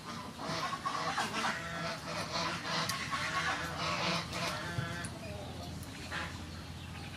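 Birds calling in a steady run of short calls, two or three a second, thinning out after about five seconds.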